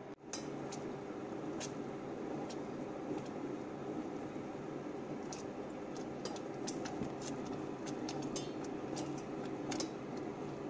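Beet sauce cooking in a stainless steel pot on an electric cooktop while a silicone spatula stirs it constantly. A steady hum and hiss with scattered light ticks.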